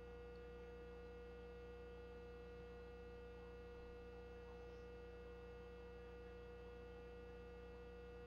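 Faint, steady electrical hum with one clear, unchanging tone over a light hiss: the background noise of the recording, otherwise near silence.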